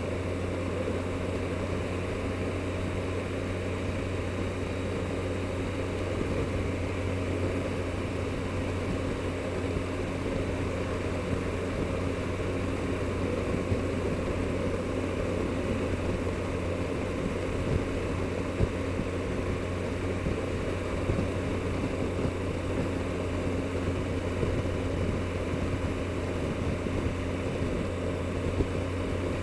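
Triumph Explorer motorcycle's inline-three engine running at a steady pitch, with a constant rush of wind and road noise over it.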